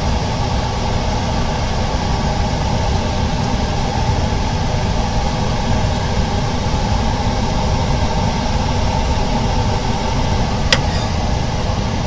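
Steady whir of workshop machinery or a fan, an even background noise with a faint hum in it, and one sharp click near the end.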